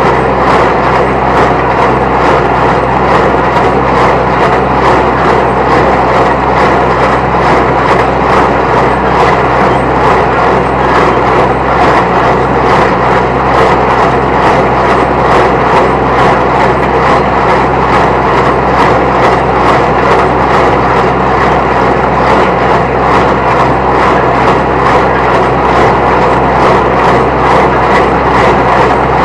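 Small New Holland T1510 diesel tractor running steadily under load while driving a New Holland 269 Hayliner square baler off its PTO; the baler's plunger gives a steady, regular beat over the engine.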